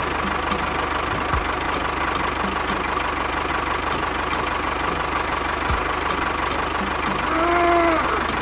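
Tractor diesel engine running steadily at idle with a knocking clatter. Near the end a short tone rises and falls.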